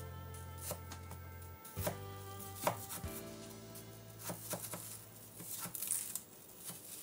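Kitchen knife slicing an apple and striking a wooden cutting board, several separate cuts, the sharpest about two and a half seconds in.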